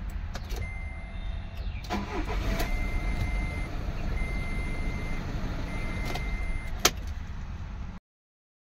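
Diesel car engine idling steadily with a low, even rumble: it is running normally now that its rat-chewed camshaft sensor wires have been repaired. A high electronic beep repeats about every second and a half, and there is a sharp click near the end. The sound cuts off suddenly just before the end.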